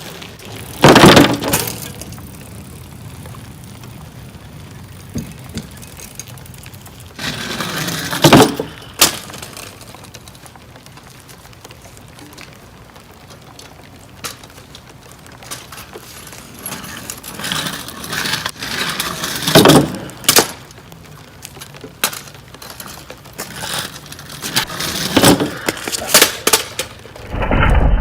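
A bicycle riding over and jumping off a thin wooden plank ramp propped on stacked bricks: several loud clattering knocks of wood and brick a few seconds apart, the ramp rattling on its supports.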